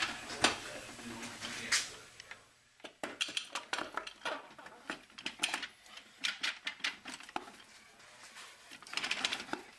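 Irregular metallic clicking and clinking of steel clutch and gear-train parts as a 6R80 transmission's front gear train and clutch assembly is lowered and worked down into the transmission case, its clutch plates engaging their splines. The clicks come thickest in the last few seconds.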